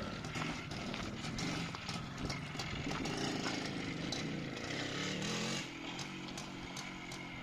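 Minsk two-stroke single-cylinder motorcycle engine running unevenly under light throttle, just revived after months of storage. Its pitch rises around five seconds in, then the sound drops off sharply about half a second later.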